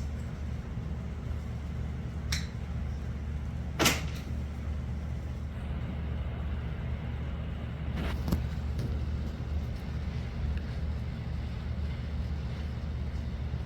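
A few sharp knocks over a steady low hum; the loudest knock comes about four seconds in, and two lighter ones follow about four seconds later.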